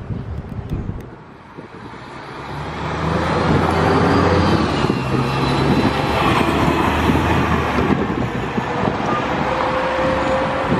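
A city transit bus drives past at close range. Its engine and road noise build over the first few seconds, then stay loud as it passes and pulls away.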